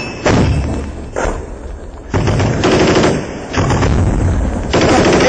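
Automatic gunfire in about five short bursts, each half a second to a second long, with brief gaps between them.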